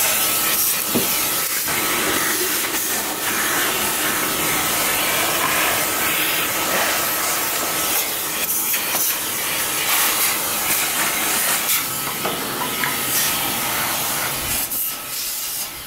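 Vacuum cleaner running steadily, its hose nozzle sucking dirt and debris out of a car's engine bay, with a faint steady whine and brief scratchy clicks as the nozzle works around the parts. The noise fades near the end.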